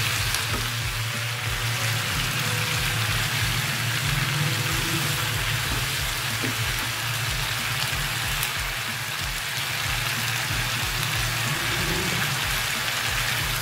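Potato and capsicum pieces sizzling steadily in an oiled frying pan as they are stirred with a wooden spatula. Under the sizzle there is soft background music with a low beat about three times a second.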